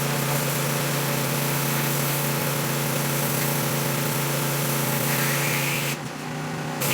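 A 3400 PSI, 2.4 gallon-per-minute pressure washer running steadily, its wand's high-pressure water spray hissing onto a concrete pad. About six seconds in the spray cuts out for under a second while the machine keeps running, then resumes.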